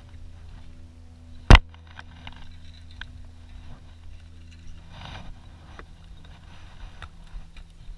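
A boat motor hums steadily while a hooked bass is brought aboard. About a second and a half in there is one very loud sharp knock, followed by lighter knocks, ticks and scrapes on the boat.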